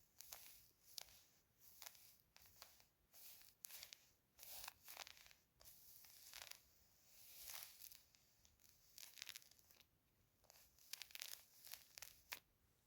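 Quiet close-miked ASMR crackling and rustling: many irregular soft crackles, with a few longer rustling swells about four and a half and seven and a half seconds in.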